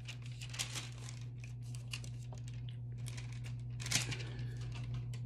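Thin Bible pages rustling as they are leafed through by hand: a run of light paper rustles, with one louder page flip about four seconds in.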